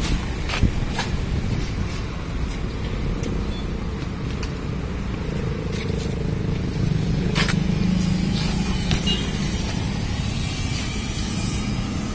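A motor running steadily with a low hum that swells a little around the middle, with scattered light clicks and knocks.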